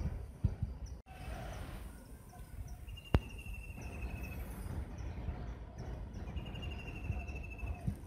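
A small songbird gives two rapid trills of evenly spaced, high, even-pitched notes, each about a second and a half long, about three seconds in and again about six and a half seconds in. Scattered short chirps sit between the trills, with low thumps near the start and a sharp click about three seconds in.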